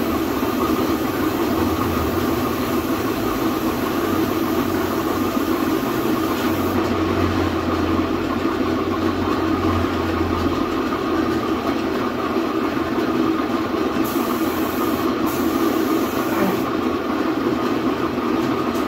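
An aerosol can of heat-resistant paint hissing as it sprays a motorcycle muffler, over a steady machine-like drone.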